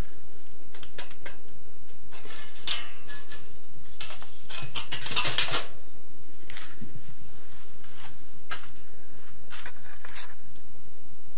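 Light clinks, scrapes and rustles of sheet-metal drywall profiles and hand tools being handled, in several short separate bouts.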